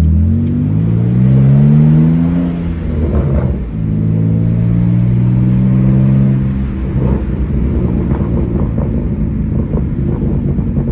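Straight-piped BMW E46 inline-six being revved while parked: the engine note climbs for about two and a half seconds, drops briefly, is held steady for about three seconds, then falls back to a choppy idle about seven seconds in.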